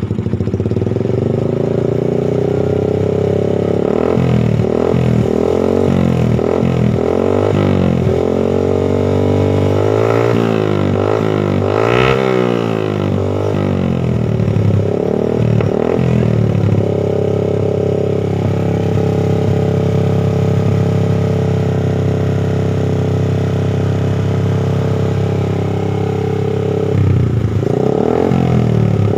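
Yamaha MX 135 underbone's single-cylinder four-stroke engine running through a custom racing exhaust with a trioval silencer. It is revved up and down repeatedly, the highest rev about twelve seconds in, then held steady, with a few more revs near the end.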